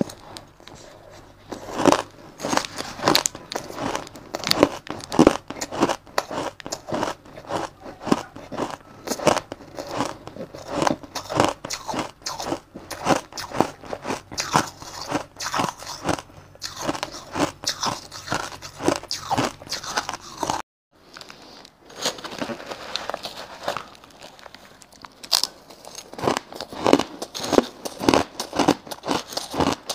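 Close-miked chewing of crushed shaved ice: a fast, uneven run of crisp crunches, breaking off briefly about two-thirds of the way through.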